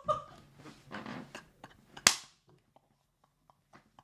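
A single sharp bang about two seconds in, after a few faint, soft sounds, followed by a run of soft, irregular clicks.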